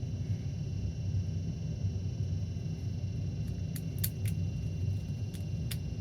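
Steady low rumble with a handful of light, sharp clicks in the second half, from small tools and wiring parts being handled.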